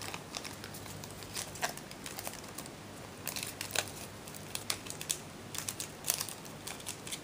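Foil wrapper of a Yu-Gi-Oh! booster pack crinkling and tearing in the hands in short, irregular crackles as the pack comes apart in pieces.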